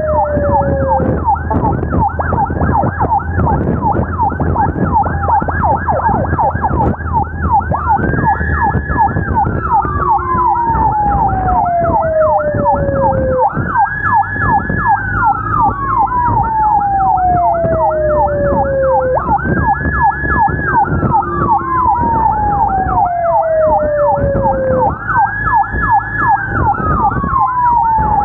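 Emergency sirens from an ambulance convoy and its police motorcycle escort, two sounding together. One is a fast yelp of about four sweeps a second. The other is a slow wail that climbs, holds high, then falls, about every six seconds, over a low engine and road rumble.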